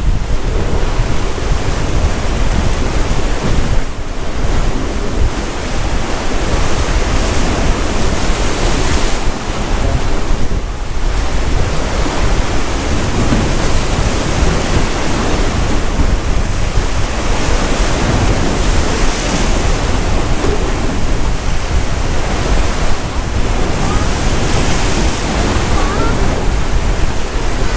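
Sea surf washing against a tetrapod breakwater, the hiss swelling as waves come in every several seconds, with wind rumbling on the microphone.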